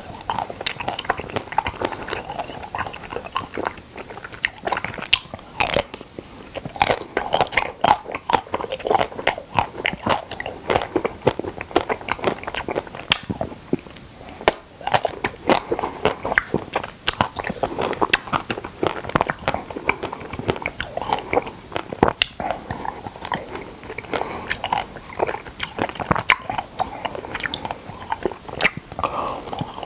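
Close-miked biting and chewing of frozen Okdongja milk caramel ice cream bars: an irregular, continuous run of crisp bite and crunch sounds as chunks of the hard ice cream are bitten off and chewed.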